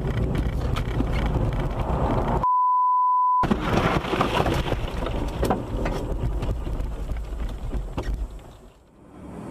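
Road and wind noise from a car inside its cabin, cut off about two and a half seconds in by a one-second pure beep: a censor bleep. The car then slides off the road into deep snow with a run of crunching knocks and rattles, fading away near the end.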